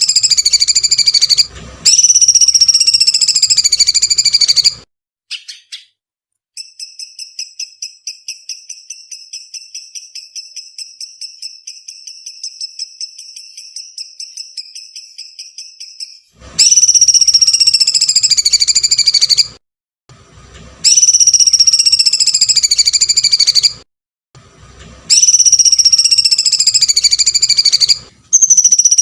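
Songbird-training 'masteran' recording: loud, shrill screeching calls about three seconds long, each falling slightly in pitch, repeated with short gaps. Between them runs a rapid rattling trill of sharp notes, about five a second, lasting about ten seconds.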